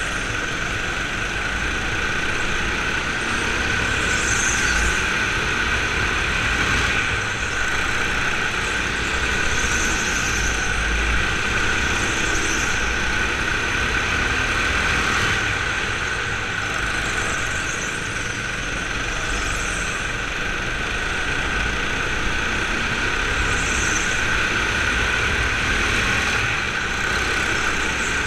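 Go-kart heard from onboard while racing laps, its motor running steadily. Brief high squeals come every few seconds as the tyres work through the corners.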